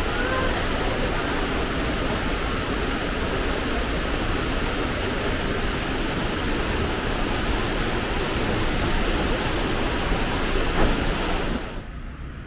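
Waterfall rushing steadily, an even hiss of falling water that cuts off suddenly near the end.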